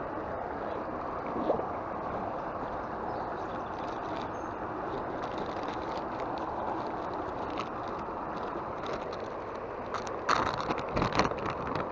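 River water rushing over a ford, a steady even rush. About ten seconds in, a short cluster of sharp clicks and knocks.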